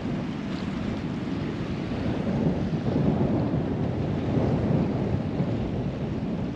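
Wind buffeting the microphone in steady gusts over the wash of choppy sea water.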